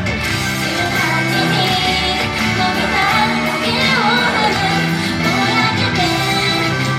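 J-pop idol group singing live over loud, continuous pop music.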